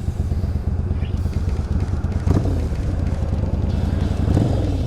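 Motorcycle engine idling at a standstill, a steady low pulsing rumble.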